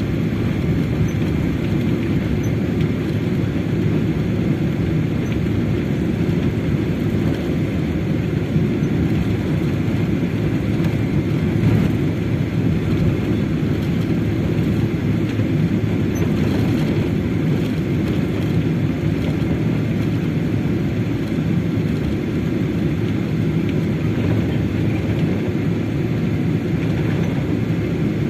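Steady low rumble of a Boeing 777's jet engines and air noise, heard from inside the passenger cabin, with no rise or fall in level.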